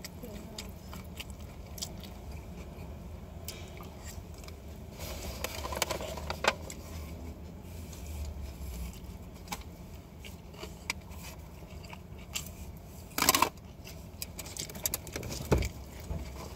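A person eating: biting and chewing food, with scattered small clicks and scrapes of a plastic fork and food container being handled. There is a louder short burst about three seconds before the end.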